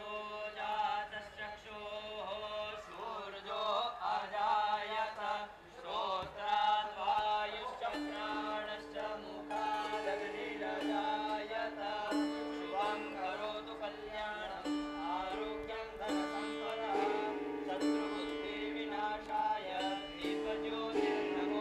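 Background music: a gliding melodic line, joined about eight seconds in by steady held notes underneath that carry on to the end.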